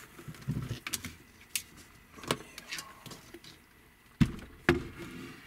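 Handling of the plastic battery-kit parts and cables on a wooden workbench: a scatter of small clicks and knocks, with two louder knocks about half a second apart near the end.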